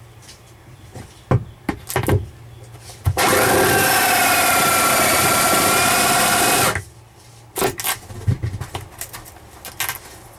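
Cordless power drill running steadily for about three and a half seconds with a steady whine, boring through a channel in the pontoon boat's fittings to route wire. Scattered knocks and clicks come before and after it as the drill is positioned.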